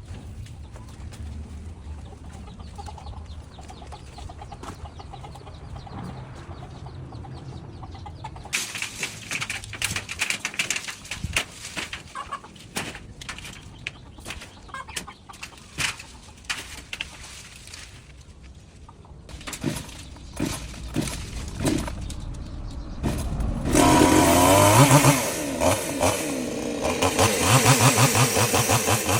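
Chickens clucking and flapping among scattered knocks and rustles; a little over twenty seconds in, a chainsaw engine starts and runs loudly, its speed rising and falling.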